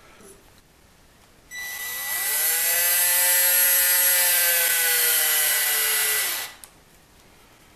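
Milwaukee cordless drill driving a 10-24 bottoming tap into the oak hub of a spool, its motor running for about five seconds. The motor whine rises in pitch as it starts, holds steady, then drops as it stops.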